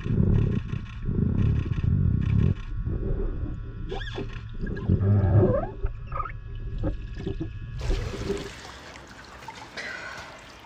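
Scuba divers' exhaled air bubbling up underwater, heard through the water as low rumbling bursts every second or two, with a few short squeaky glides, over a steady faint hum. Near the end it cuts to quieter, airy sound above the pool's surface.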